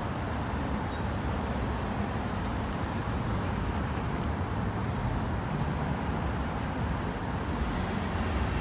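Steady city street traffic noise: the hum of passing cars and other vehicles, growing a little louder near the end.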